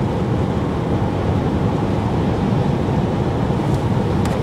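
Steady road and engine noise heard from inside a moving vehicle, with a faint click near the end.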